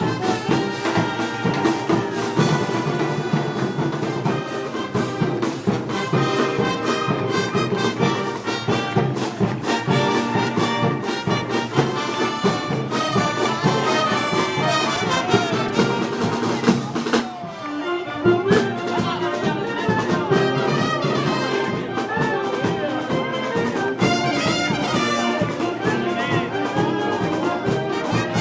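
Brass band playing Moros y Cristianos festival music (música festera): trumpets and trombones over a steady drum beat, with a brief drop about two-thirds of the way through before the band comes back in.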